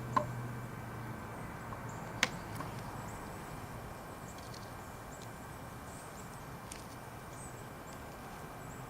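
Two sharp clicks, one just after the start and a louder one about two seconds in, over a faint steady hiss with scattered faint high chirps.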